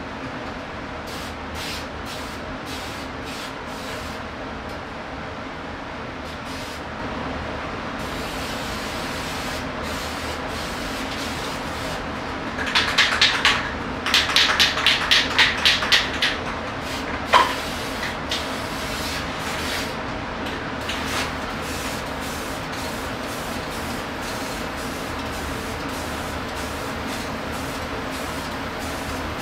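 Steady room hum with a run of quick, even brush strokes scrubbing across a painted wall panel, about three a second for a few seconds midway, followed by a single sharp click.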